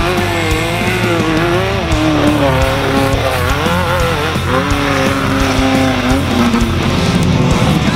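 An off-road race vehicle's engine revving up and down, mixed with rock music carrying electric guitar, bass and drums.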